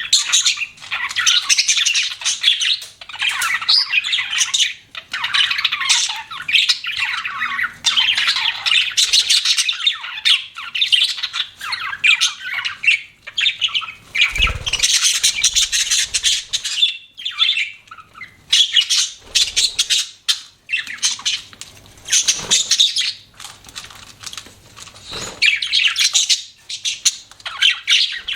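Budgerigars chirping and warbling in a rapid, continuous chatter of short high notes, with a brief low thump about halfway through.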